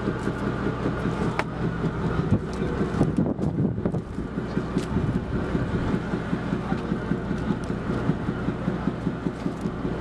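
A fishing boat's engine running steadily as a low hum, with a few sharp clicks and knocks on top.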